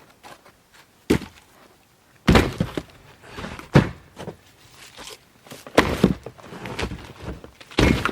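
Heavy wooden thunks of split hardwood firewood being dropped onto a stack, five or so knocks a second or two apart, some with a short scraping tail, amid footsteps.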